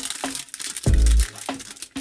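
Background music with a steady beat of heavy, deep bass hits and sharp ticks.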